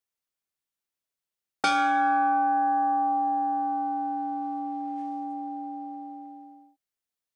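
A bell struck once, about a second and a half in, ringing with several clear tones that slowly die away over about five seconds.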